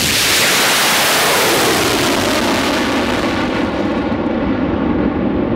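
Liquid-oxygen and ethanol rocket engine of the Stiga sounding rocket climbing away just after liftoff: a loud, continuous rushing noise whose high hiss thins out over the last second or two as the rocket recedes.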